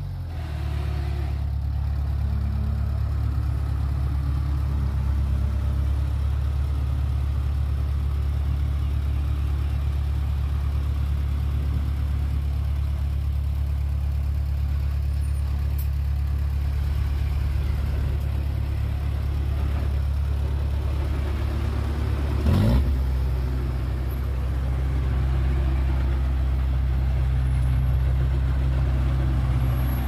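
Heavy diesel engine of earthmoving machinery running steadily at a constant speed, with a deep, even drone. One brief knock about two-thirds of the way through.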